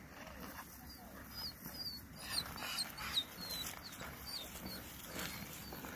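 Beagle whining: a run of short, high-pitched whimpers through the middle.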